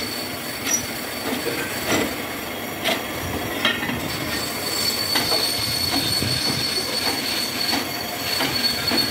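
Bench drill press running with a steady high whine as its bit cuts into a cast-iron brake disc, with scattered knocks and clinks as the disc is handled and swapped on the table.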